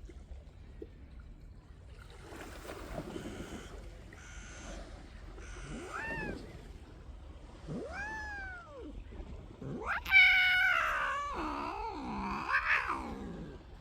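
A cat meowing: two short meows that rise and fall in pitch, then a longer, louder wavering meow about ten seconds in.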